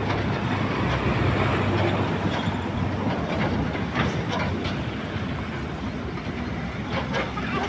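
Excavator diesel engines running steadily under load, a low hum under mechanical clatter, with a few light metallic clanks around the middle and near the end.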